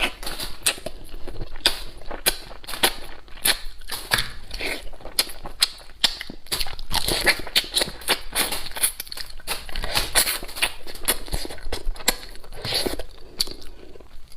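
Close-miked eating sounds: irregular chewing with many small clicks and crunches.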